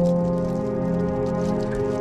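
Background music of sustained, held chords, with a faint light crackle over it.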